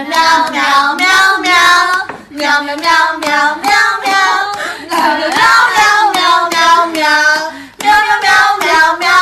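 A high-pitched voice singing in short, held phrases, with brief breaks between them.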